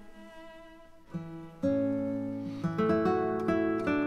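Instrumental background music of plucked acoustic guitar notes, each note struck and ringing away, soft at first and growing louder about a second and a half in.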